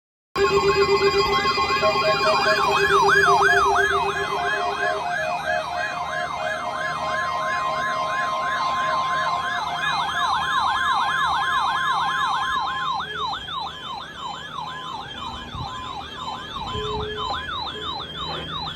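Several alarms sounding at once: an electronic siren yelping rapidly up and down about three times a second, over a steady weather-radio warning alarm tone. The steady tone stops about two-thirds of the way in while the siren keeps going.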